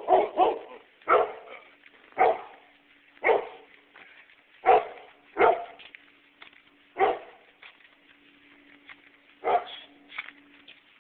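A dog barking: about ten short single barks, spread unevenly a second or so apart.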